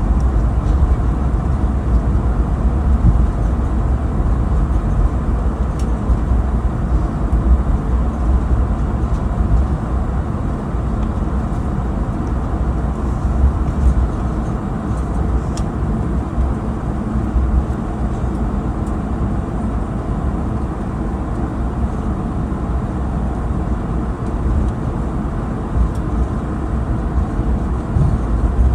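Steady low rumble inside the cabin of an Airbus A220-300 on the ground after landing, the engines at idle and the airframe rolling on the taxiway.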